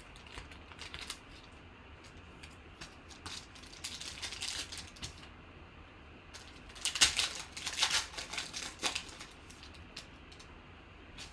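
Trading cards flicked and slid through by hand, then a 2018 Panini Contenders football foil pack torn open about six and a half seconds in, its wrapper crinkling for a couple of seconds as the loudest sound.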